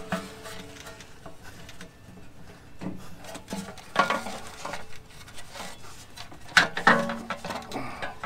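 Hands working at the plastic electrical connector tab and hoses of a Jeep Wrangler JK's evap canister: scattered clicks, taps and rubbing, louder about four seconds in and again near seven seconds.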